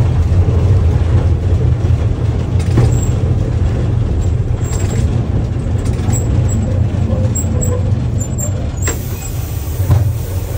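Diesel engine of a Z4p narrow-gauge locomotive running steadily under way, a loud low rumble heard from inside the cab, with a few sharp clicks about three seconds in and near the end.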